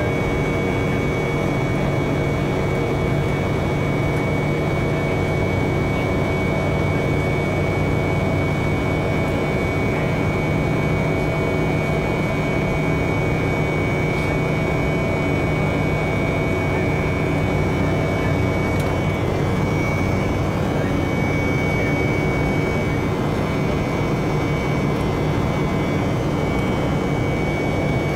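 Steady cabin noise inside a jet airliner climbing after takeoff: engine drone and rushing air, with a low hum and a thin high whine held steady throughout.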